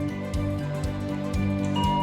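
Background music with sustained notes over a steady beat; a steady high tone comes in near the end.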